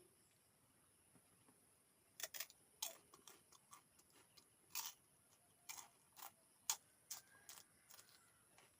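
Eating sounds close to the microphone: a string of sharp, irregular crunches and mouth clicks that start about two seconds in, as of someone chewing crisp food.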